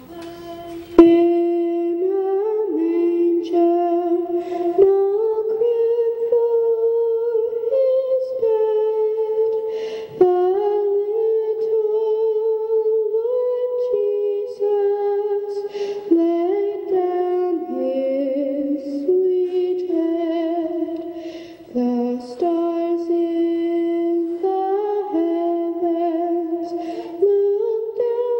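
A solo woman's voice carrying a slow, gentle melody in long held notes, largely hummed, coming in about a second in and pausing briefly for breaths.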